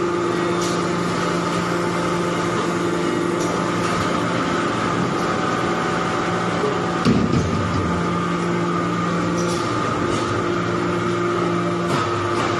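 Hydraulic metal chip baler running: a steady machine hum with a few constant tones, faint clicks now and then, and a short louder knock about seven seconds in.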